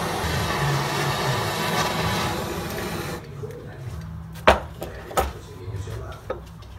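Handheld gas torch hissing steadily as it heats a warped carburetor part, shut off abruptly about three seconds in. Then a few sharp metal knocks as tools are handled on the workbench.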